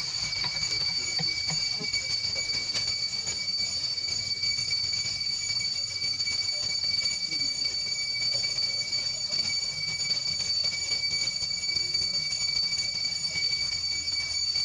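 A steady, high-pitched insect drone of several tones held without a break.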